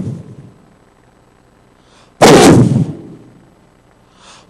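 A loud shout into a microphone, overloaded and distorted so that it cracks like a bang. It comes once about two seconds in and fades with room echo, after the tail of a previous shout at the start.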